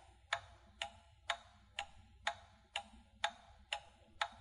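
Clock-style tick-tock sound effect of a quiz countdown timer, sharp even ticks about two a second.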